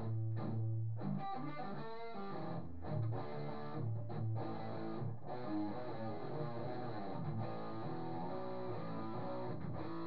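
Guitar strummed in chords, with a quick run of single picked notes about a second in.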